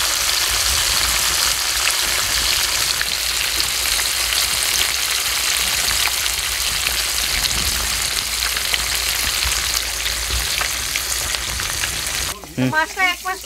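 Kalbasu (black rohu) fish steaks frying in hot oil in a karahi: a steady loud sizzle with many small crackling pops. The sizzle cuts off suddenly about 12 seconds in, and a voice is heard briefly after it.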